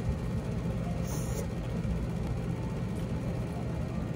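Steady low rumble and hum of a restaurant dining room's background noise, with a short soft hiss about a second in.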